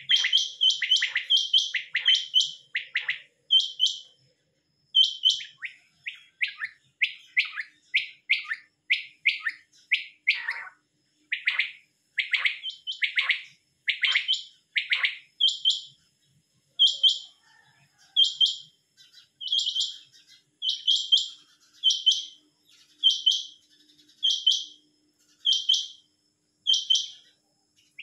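Caged quails calling: short, high-pitched call notes repeated about once a second, with a run of lower, falling notes in the middle.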